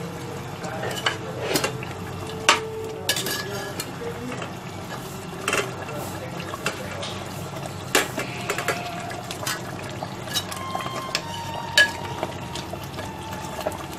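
Round gourd (tinda) pieces dropping into mutton curry in a pressure cooker, and a metal spoon clinking and scraping against the pot in scattered knocks, over a steady low hum.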